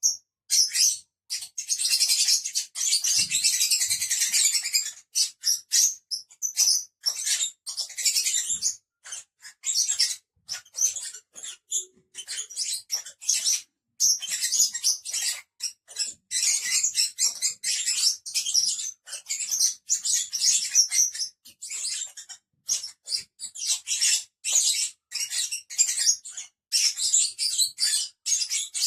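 A small flock of lovebirds chattering: a dense stream of short, high-pitched chirps and squeaks with only brief pauses.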